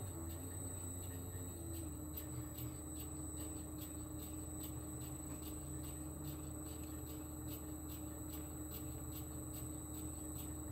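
Small benchtop lathe running steadily while a two-roller knurling tool rolls a diamond knurl onto a very thin rod: a steady motor hum with faint, even ticking about three times a second. The hum drops slightly in pitch about two seconds in.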